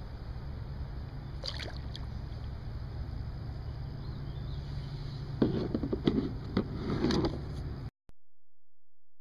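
Water splashing and knocks on a plastic kayak hull while a fish is landed beside the kayak, over a steady low rumble. The splashing and knocking cluster in the second half, then the sound cuts off abruptly to silence.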